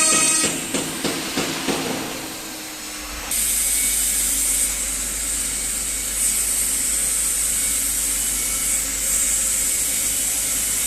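ATC CNC router's spindle whine cuts off about half a second in, followed by a few short knocks. From about three seconds in a steady hiss with a low hum sets in.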